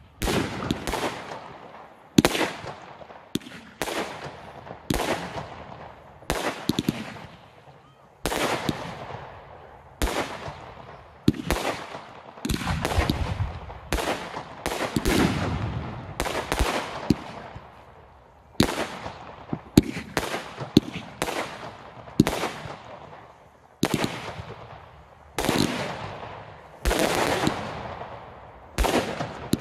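Fireworks display: aerial shells bursting in quick succession, about one or two bangs a second, each trailing off over a second or so, some with a crackling tail.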